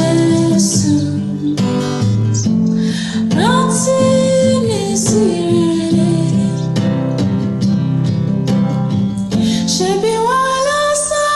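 Music: steady acoustic guitar accompaniment under a melody line of long held notes that slide smoothly between pitches.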